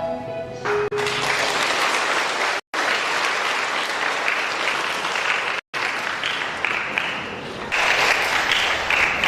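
A choir's last sustained chord ends in the first second, then audience applause breaks out and goes on steadily, cut off briefly twice by drop-outs in the recording.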